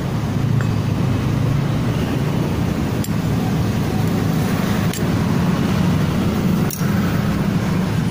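An engine or motor running steadily with a low hum, with a few short metallic clinks about three, five and seven seconds in.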